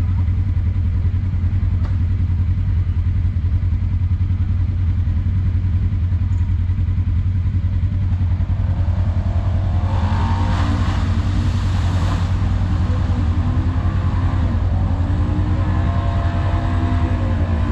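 A side-by-side UTV's engine revving up and down as it drives into a deep muddy water hole, with a rush of splashing water about ten seconds in, over the steady low rumble of an engine idling close by.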